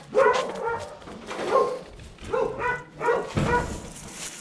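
A dog tied to a post barking, several short barks in a row.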